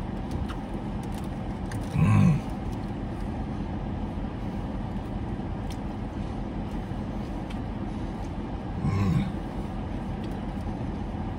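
Steady hum of a parked car running with its air conditioning on, heard inside the cabin. Over it, a man makes two short grunt-like vocal sounds while eating, about two seconds in and again about nine seconds in.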